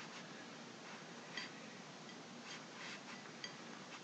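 Faint, scattered light metallic ticks, a few short ringing tinks among them, over a steady low hiss: a bore scope probe shifting against the inside of a stainless steel rifle barrel.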